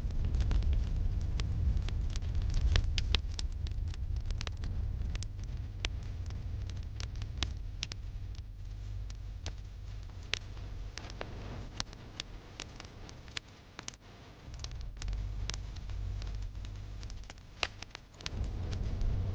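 Wood fire crackling in a fireplace: irregular sharp pops and snaps over a low rumble that dips twice in the second half.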